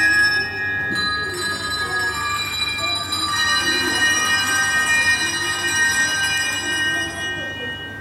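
Handbell ensemble playing the final chords of a piece: several bells struck together about a second in and again a little past three seconds, the chords ringing on and then dying away near the end.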